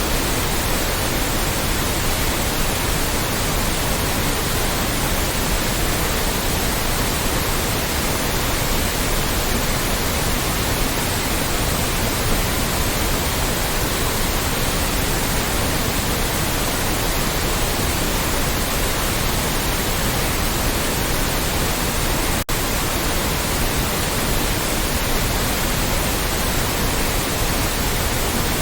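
Loud, steady white noise, an even hiss across all pitches, with a split-second dip in level about 22 seconds in.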